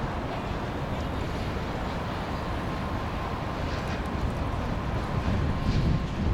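Steady outdoor rumble and hiss, heaviest in the low range, swelling a little near the end.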